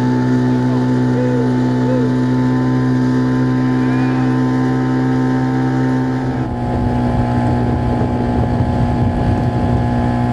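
Motorboat engine running steadily at towing speed over the rush of the wake. About six and a half seconds in, the engine tone shifts abruptly and wind buffeting on the microphone grows louder.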